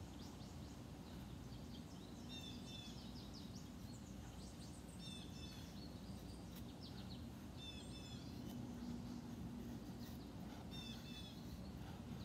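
A songbird singing the same short phrase of quick high notes about every three seconds, over a steady low hum.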